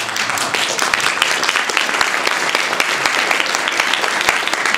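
Audience applauding: many hands clapping at once, a dense, steady clatter of claps.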